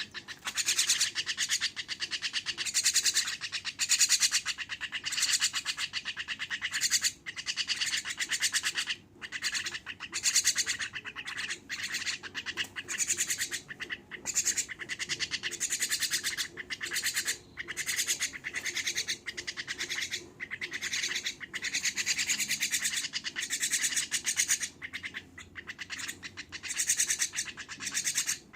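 Javan myna (jalak kebo) giving a continuous run of rapid chattering calls, broken by several brief pauses.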